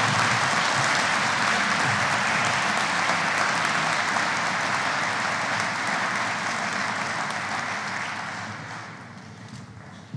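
Audience applauding steadily, dying away over the last two or three seconds.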